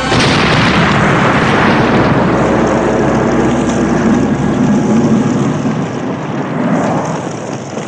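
An Opel Omega estate car blowing up with a sudden blast, followed by the steady rushing noise of the car burning, which slowly eases off.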